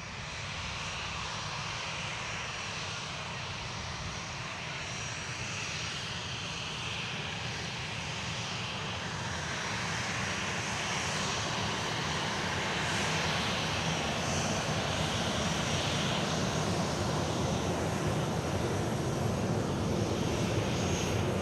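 Jet engines of a Boeing 737-800 airliner (CFM56 turbofans) running: a steady roar with a faint high whine, growing gradually louder.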